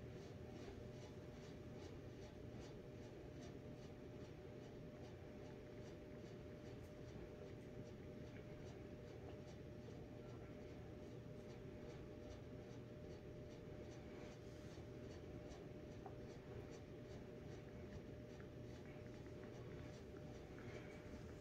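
Near silence: quiet room tone with a faint steady hum and soft, faint ticks repeating about three times a second.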